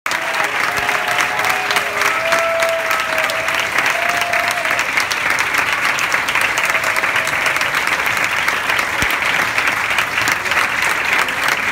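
Audience clapping steadily throughout, a dense crackle of many hands, with a few voices calling out over it in the first five seconds.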